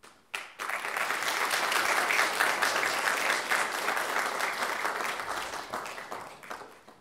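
Audience applauding. The clapping starts suddenly within the first second, holds steady, then thins out and fades away near the end.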